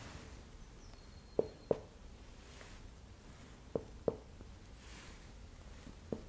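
Percussion of the abdomen to find the splenic border: a finger tapping on the middle finger laid flat against the belly. The taps are short and come in pairs about a third of a second apart, twice, with a fifth tap just before the end.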